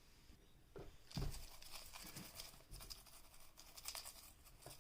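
Faint rustling with a few light taps and clicks, as a bowl of colour pieces is shaken and one is picked out by hand.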